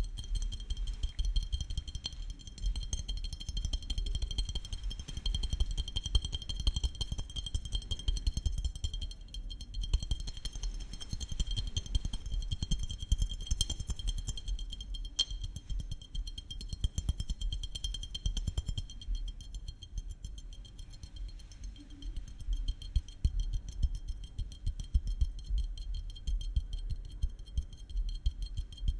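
Fingertips tapping rapidly and continuously on small glass bottles held close to the microphones, giving soft, dull taps with a light glassy clink.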